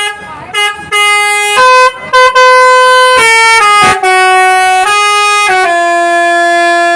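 Bus telolet horn (Basuri) playing a melody: a run of loud, held horn notes that jump between pitches with short breaks, then step downward to a long low note near the end.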